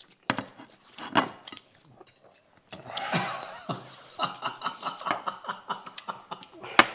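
People laughing at a dinner table, a run of quick, pulsing bursts of laughter starting about three seconds in, after a few sharp knocks early on.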